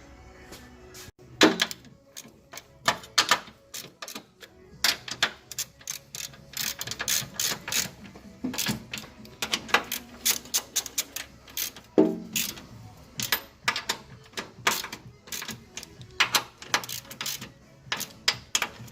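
Hand wrench working the nuts on a strut-top caster/camber plate: a run of irregular metallic clicks and ratcheting, with a louder ringing metal clank about a second and a half in and another about twelve seconds in.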